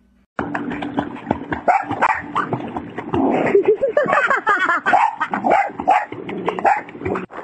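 A Boston terrier barking in a swimming pool amid rapid splashing of water, with a wavering, pitched cry about halfway through.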